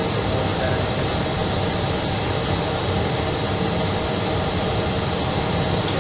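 Steady engine and airflow noise of an Airbus airliner in flight.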